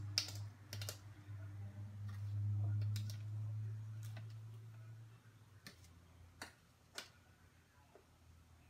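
Spoon and jar clicking as spoonfuls of powdered chicken bouillon are scooped from a plastic jar, with sharp clicks scattered through. Under them runs a low steady hum that fades out a little past halfway.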